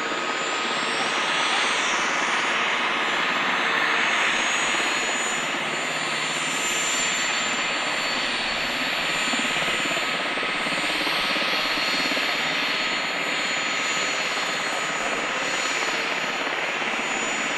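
Boeing CH-47J Chinook's turbines running on the ground with the rotors not yet turning. A steady turbine whine sits over a rushing noise, and one high whine rises in pitch over the first few seconds, then holds.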